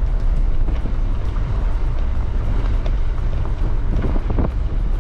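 Steady low rumble of a vehicle on the move, with wind noise on the microphone.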